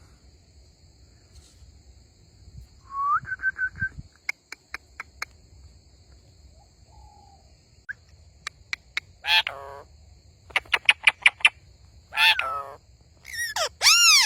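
Pet parrot calling: a short whistled trill about three seconds in, runs of quick clicks, then several harsh screeching calls in the second half, the loudest near the end.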